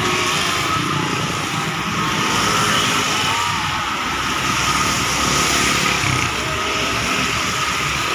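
Steady traffic noise of motorcycles and cars passing on a wet road.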